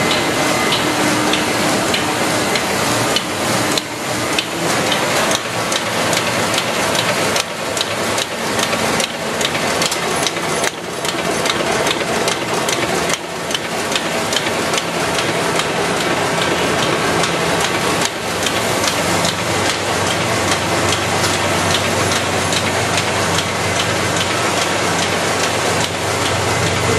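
Ryobi 524 HE four-colour sheetfed offset printing press running: a steady mechanical clatter with a dense patter of rapid clicks. A low hum grows stronger about two-thirds of the way through.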